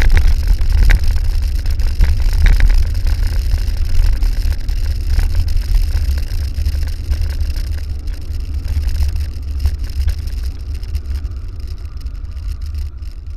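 Wind rumbling on the microphone of a camera riding on a bicycle, with clicks and rattles from the bike on the rough lane. The rumble eases off over the second half as the bike slows.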